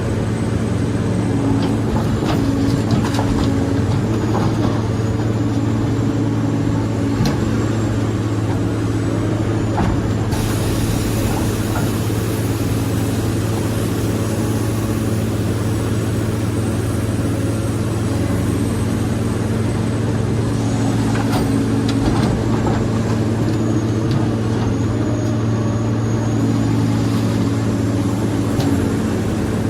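Heavy diesel engine running steadily at a constant speed, a deep even hum with a few short clicks and knocks over it.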